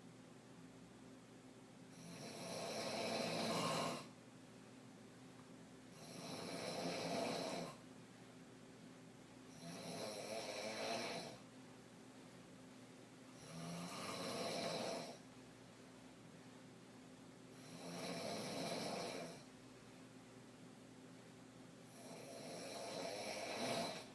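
A woman snoring hard in deep sleep on her back: six long snores about every four seconds, each swelling and then cutting off sharply.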